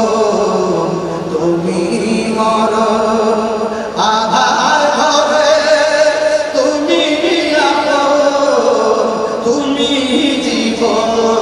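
A man singing a Bengali Islamic devotional song (naat) into a microphone, in long held notes that waver slightly in pitch and move to a new note every second or two.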